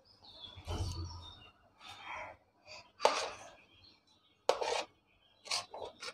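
Metal spoon scraping and clinking against a ceramic plate while scooping soft mashed potato filling, with several short, sharp clinks.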